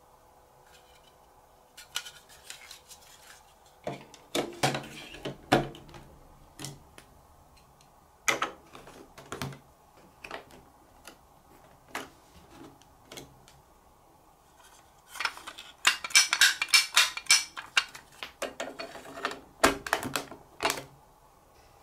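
Large plastic building blocks and marble-run track pieces clicking and knocking as they are pressed together onto a plastic baseplate, with a spell of denser clattering of pieces about two-thirds of the way through.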